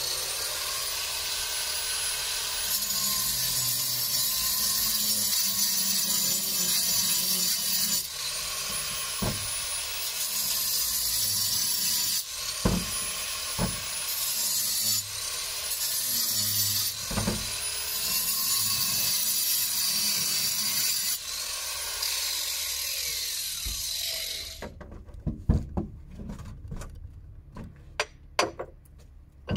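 A power tool cutting, running continuously with a few brief dips, then stopping about 24 seconds in. Several sharp knocks follow.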